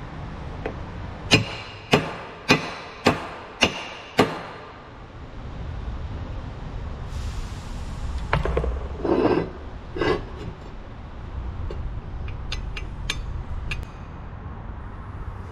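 Six sharp hammer blows on the metal bearing assembly of a Hale pump, about two a second, each with a short metallic ring. Later come a few duller knocks and light clinks of metal parts being handled on the bench.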